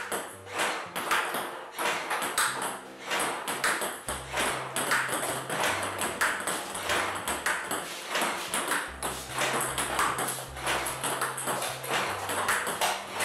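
Table tennis ball clicking off paddle and table in a quick, steady rally, about two hits a second.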